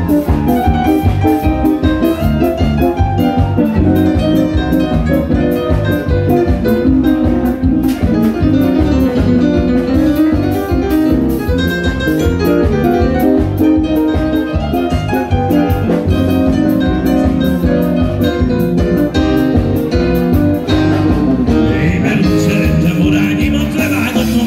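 Live band music led by a Roland digital piano played fast, over drums with a steady beat. Near the end a man's singing voice comes in over the band.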